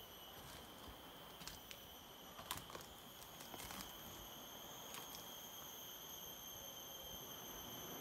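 Rainforest insects calling in a steady, unbroken high-pitched chorus, with a few light taps and clicks in the first five seconds.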